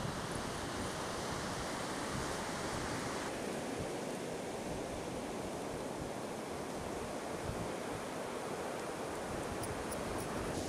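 Steady rush of ocean surf and wind, with fish deep-frying in a pan of hot oil sizzling beneath it and a few faint crackles near the end.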